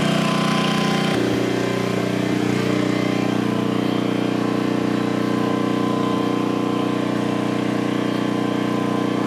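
Portable generator's small engine running steadily, its note shifting slightly about a second in.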